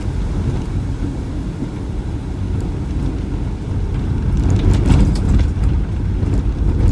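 A car driving in heavy rain, heard as a loud, steady low rumble, with a series of sharp knocks and clicks from about four and a half seconds in.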